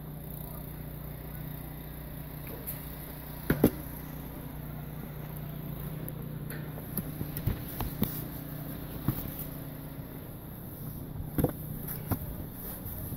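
A steady low mechanical hum like a motor or engine running, with several sharp knocks, the loudest a pair about three and a half seconds in.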